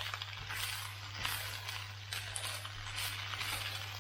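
Rice frying in a pan as it is stir-fried, the sizzle swelling with each stroke of the spatula about twice a second.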